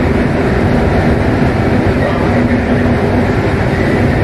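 Rubber-tyred Paris Métro line 4 train running through a tunnel: a loud, steady rolling rumble with a faint steady whine over it.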